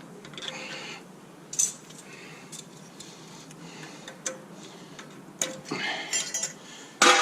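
Scattered light metallic clicks and clinks of hand tools against a brake caliper as a pad retaining pin is worked loose, a few sharp taps a second or so apart.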